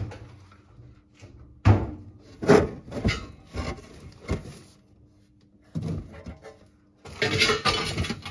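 Car parts being handled and moved about: a series of separate knocks and clunks, the loudest about a second and a half in, then a busier stretch of rattling and scraping near the end.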